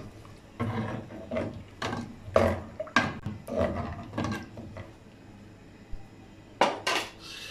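Spoon stirring soaked lentils and water in a pressure cooker pot, a scraping swish about every half second, then two sharper knocks near the end.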